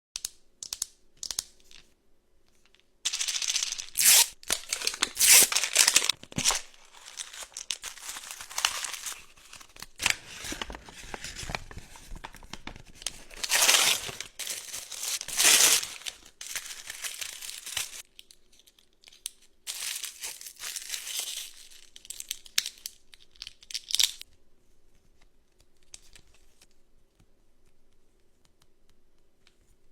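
Toy packaging torn open and crinkled by hand, in three long bouts of tearing and rustling with small clicks between, then only faint rustles over the last several seconds.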